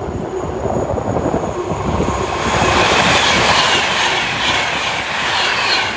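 Class 390 Pendolino electric train passing at speed on the fast line. The rush of wheels on rail swells from about two seconds in and stays loud, with high whines that fall in pitch as the train goes by.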